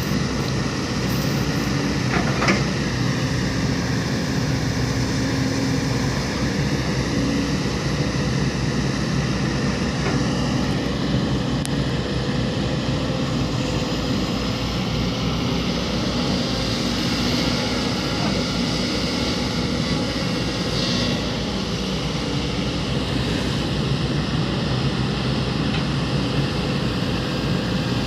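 Heavy diesel construction machinery running steadily, a continuous engine drone with no break.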